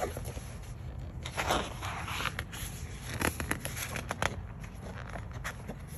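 Pages of a large printed book being turned by hand: paper rustling and crinkling, loudest about a second and a half in, with small scattered paper ticks.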